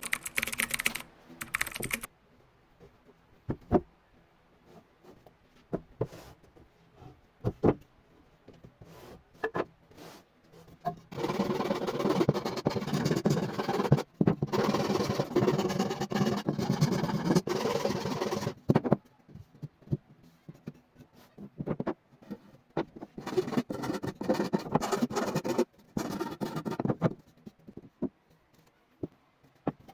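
Scattered sharp taps and knocks, then two stretches of rough, steady scraping noise, the first lasting about eight seconds and the second a few seconds.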